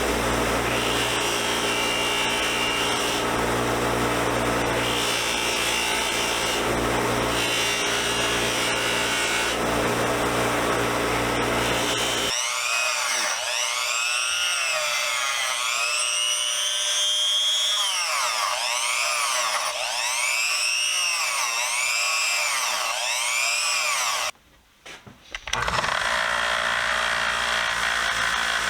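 A 1x30 belt sander running, with steel pliers (BX cable cutters) being ground on the belt. About twelve seconds in, the deep hum drops away and the grinding turns thinner, rising and falling in repeated sweeps. It cuts out briefly near the end and the steady grinding comes back.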